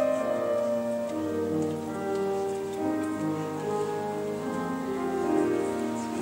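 Children's choir singing a slow piece in held notes that change every second or so.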